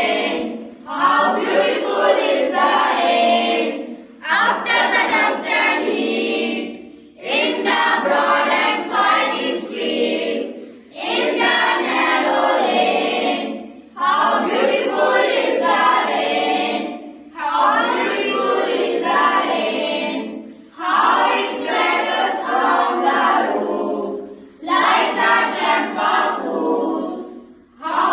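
A class of children speaking a poem together in unison, in phrases of about two to three seconds with short breaks between lines.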